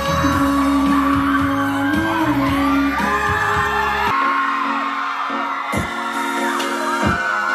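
Music with a singing voice over a steady bass beat; about four seconds in it cuts abruptly to a different piece with no deep bass and sparse drum hits.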